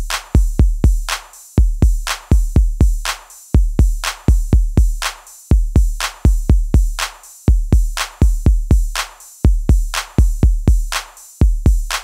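Electronic background music: a drum-machine beat of deep kick drums and sharp hits in a steady repeating pattern.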